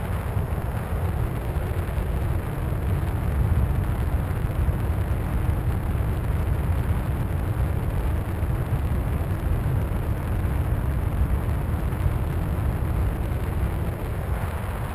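Steady wind rush over a camera mounted on a Skywalker 1900 RC plane in flight, heaviest in the low end.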